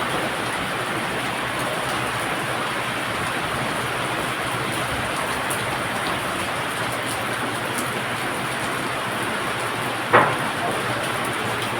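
Brass melting furnace running with a steady rushing noise, and one short sharp sound about ten seconds in.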